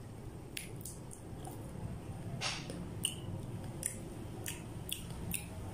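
A person chewing food close to the microphone: an irregular series of short, wet mouth clicks and smacks over a low steady background.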